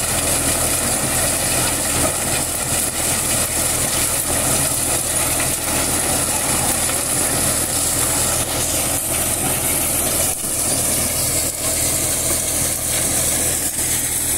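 Tractor engine running steadily, driving a corn thresher as ears of corn are fed into it: a constant mechanical din with a broad hiss and a few short knocks.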